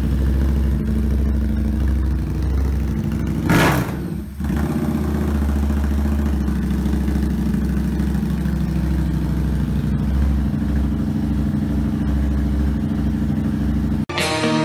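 Harley-Davidson Street 750's liquid-cooled V-twin idling through an aftermarket slip-on exhaust and open pod air filter, with one short loud burst about three and a half seconds in. Guitar music cuts in just before the end.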